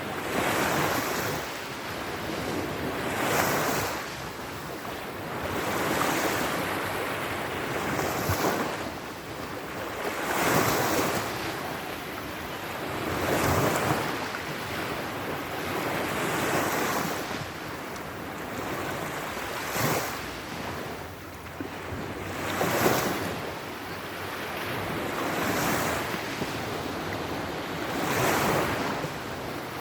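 Sea waves breaking in a steady series, each surge of surf swelling and washing away every two to three seconds.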